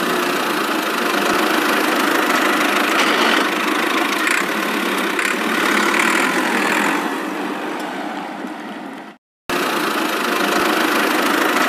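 Small motor of a homemade toy tractor running steadily, with a brief break about nine seconds in.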